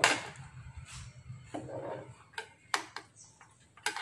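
Screwdriver clicking and scraping on a steel bolt as a ground wire's terminal is screwed down on a scooter frame, with several sharp clicks spread out, the loudest right at the start.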